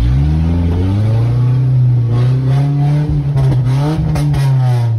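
1997 Nissan's engine revving hard under load while driving off-road, heard from inside the cab. The pitch climbs at the start, sags, rises again about four seconds in and drops near the end, with a few sharp knocks between about three and four and a half seconds in.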